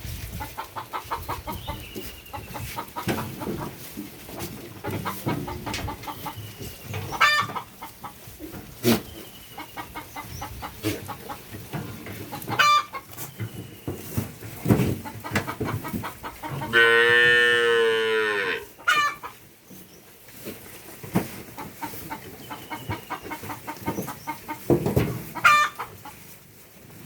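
Hen clucking on and off while laying an egg, with short squawks and light knocks. About two-thirds of the way through, a loud, drawn-out call of about two seconds.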